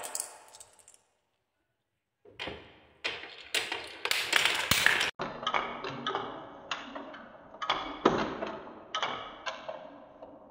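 Balls clacking and rolling along a wooden marble-run spiral track: a quick clatter of knocks, then separate clicks with a short ring about two a second, slowly getting quieter.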